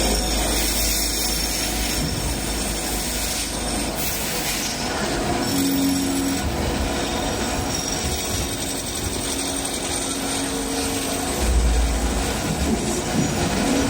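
CNC lathe cutting a piston: steady machining noise of the spindle and cutting tool on metal, with a brief louder low rumble near the end.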